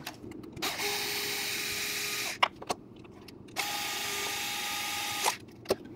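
Small power screwdriver driving two M3 screws into the 3D-printed plastic nose of the blaster. There are two steady whirring runs of under two seconds each, one after the other, with a pause and a few clicks between.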